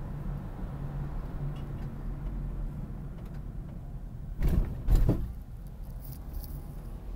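Steady low rumble of a car's engine and tyres, heard from inside the moving car's cabin. A little past halfway come two loud thumps about half a second apart.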